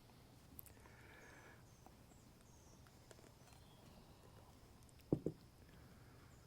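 Quiet room tone with a light tick under a second in and two soft knocks in quick succession about five seconds in, from objects being handled.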